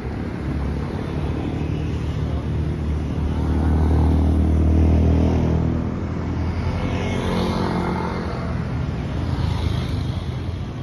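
Road traffic running past: one vehicle's engine grows louder, passes close about four to five seconds in, then fades, while other traffic hums on.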